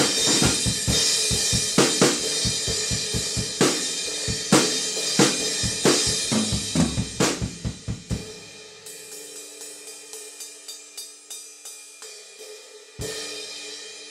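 Drum kit played with cymbal crashes over hi-hat, snare and bass drum; the cymbal under test is a Zildjian 18-inch S Medium Thin crash. About eight seconds in, the drums drop out, leaving light, quick stick taps on a cymbal. Near the end, one crash hit rings out and fades.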